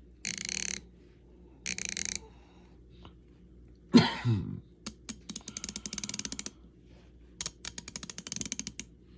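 A 3/8-drive hand ratchet ratcheting in short runs, its pawl clicking very rapidly over the fine-toothed gear as the back drag is tested. A single sharp knock about four seconds in.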